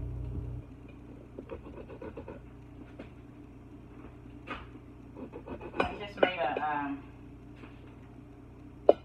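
Kitchen handling sounds at a counter: small clicks and knocks of packages and produce being moved. A low hum stops suddenly just after the start, a woman's voice sounds briefly without words about six seconds in, and there is a sharp knock just before the end.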